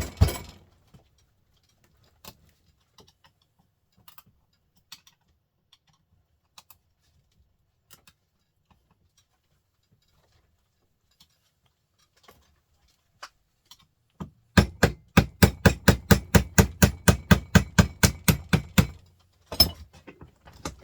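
Hand tools working on a small printer motor: a loud knock, then scattered small metallic clicks, then a fast, even run of sharp knocks, about seven a second, for some four seconds, and one last knock near the end.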